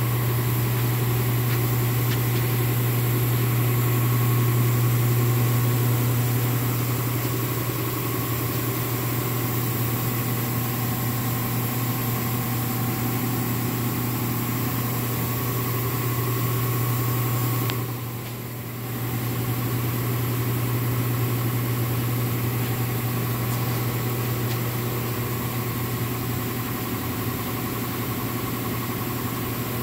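Steady low machine hum of a paint booth's ventilation fans running, with a few steady tones above it; it drops briefly about two-thirds of the way through, then carries on.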